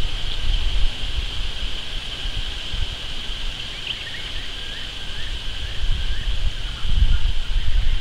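Outdoor bush ambience: wind buffeting the microphone in uneven low gusts, strongest near the end, over a steady high insect hiss, with a few faint, brief bird chirps in the middle.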